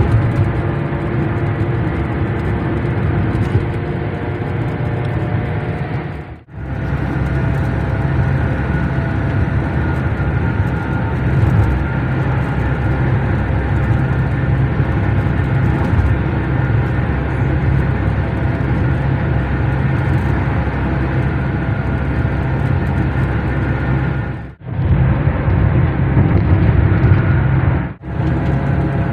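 Steady road and engine noise heard from inside a moving car's cabin, with a strong low rumble. It cuts out briefly three times: about six seconds in and twice near the end.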